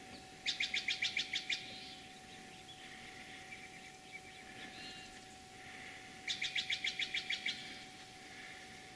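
A bird calling: two quick runs of about eight sharp, high repeated notes, the second about six seconds after the first, with fainter chirps in between.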